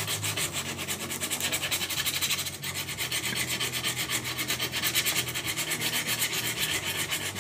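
Coarse sandpaper rubbed by hand over the lining of a Honda PCX125's centrifugal clutch shoe, in quick, even back-and-forth strokes. It is scuffing the glazed, shiny lining rough again so the shoe grips the clutch bell without slipping.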